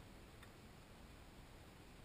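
Near silence: faint background hiss with a single soft click about half a second in.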